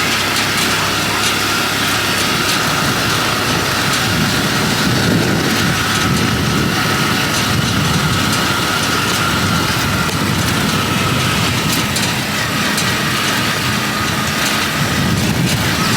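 Small engine of a motorized farm cart running steadily while it carries riders, with scattered rattling clicks.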